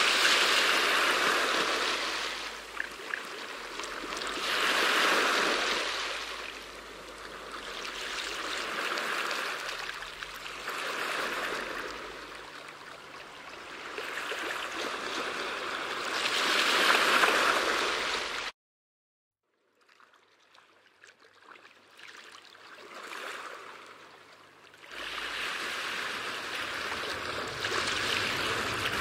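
Underwater water noise heard through a submerged camera: rushing and bubbling that swells and fades every few seconds. The sound cuts out completely for about a second past the middle, then comes back fainter before growing again.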